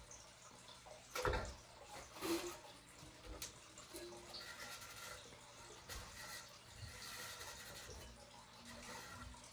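Soapy water and a damp cloth being worked over a copper fire extinguisher: faint wet wiping and dripping, with two louder short sounds about one and two seconds in.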